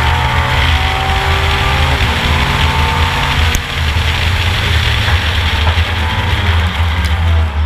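Ford Capri race car's engine running hard at racing speed, heard from on board, with road and wind noise. The engine note dips briefly about three and a half seconds in.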